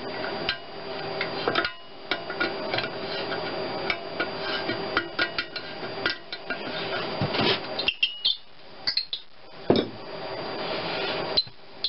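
Wrench and metal fittings clicking and clinking as bolts are worked at the exhaust manifold of a Geo Metro G10 three-cylinder engine: irregular sharp metal taps, thinning out about two-thirds of the way through, with a louder knock about ten seconds in.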